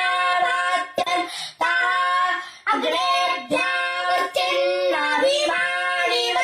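A boy chanting Vedic mantras in Sanskrit, holding each syllable on a few steady pitches in the traditional recitation style, with short breaths between phrases.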